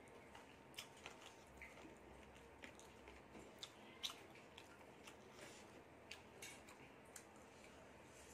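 Faint eating sounds: scattered wet clicks and smacks of chewing and of fingers pulling meat off a chicken leg, the sharpest click about four seconds in.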